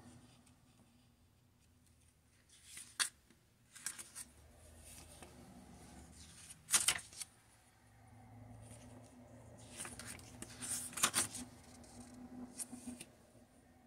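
Folded paper user manual being opened out and handled: crisp paper rustles and crackles come in scattered bursts, the loudest about seven and eleven seconds in.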